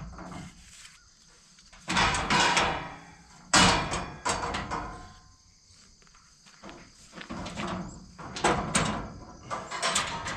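A folding steel forklift safety cage being unfolded by hand, its frame and hinges clanking and rattling in several bursts. The sharpest clank comes about three and a half seconds in, and a run of smaller knocks follows near the end.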